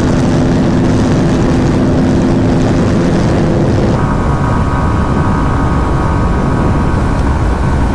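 Bajaj Pulsar RS200's single-cylinder engine held flat out at top speed, buried in loud wind rush on a helmet-mounted camera. The bike sits on its rev limiter at about 149 km/h. About four seconds in, the steady engine tones shift higher.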